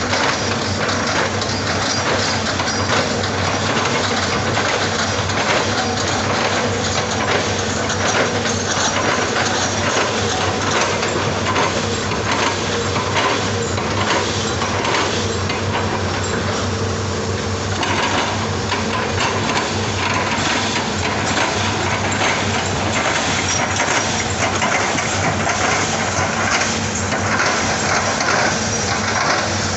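Hitachi excavator's diesel engine running steadily under work, with dense cracking and crunching throughout.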